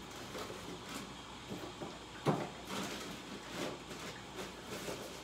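A few light knocks and clicks over a low steady room hum, the sharpest about two seconds in.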